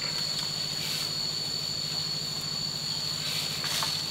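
Steady high-pitched drone of insects, with a steady low mechanical hum beneath it and a few faint clicks near the end.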